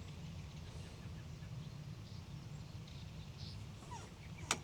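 Quiet riverbank ambience: a steady low rumble with a few faint, short chirps, and one sharp click near the end.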